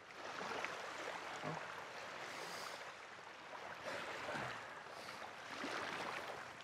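Small waves washing against the shore, a steady even wash of water noise, with a few brief vocal sounds.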